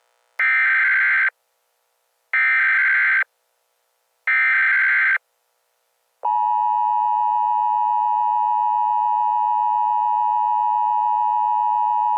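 Emergency Alert System SAME header: three bursts of screeching digital data, each about a second long and two seconds apart. About six seconds in, the steady two-tone EAS attention signal begins and holds unbroken. Together they open a new emergency alert broadcast.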